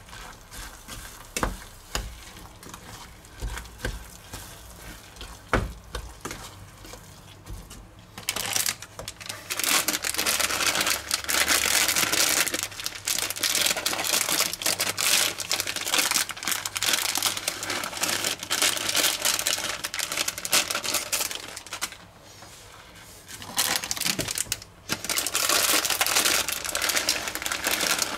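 A wooden spoon knocks and scrapes as it stirs in a stainless saucepan. About eight seconds in, plastic almond bags start to crinkle loudly as they are handled and emptied into the pot. The crinkling stops briefly near the end, then starts again.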